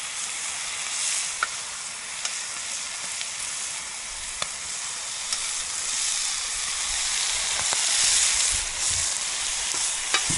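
Potatoes, mushrooms, onion and meat sizzling steadily in a sadj pan over a campfire, with a few sharp clicks and, in the second half, soft low knocks of stirring.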